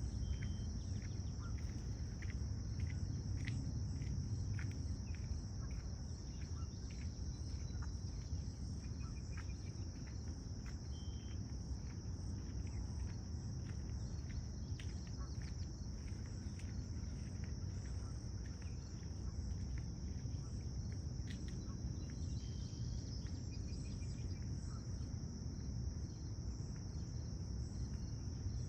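Steady, high-pitched chorus of summer insects, with many short faint clicks scattered over it and a low rumble underneath.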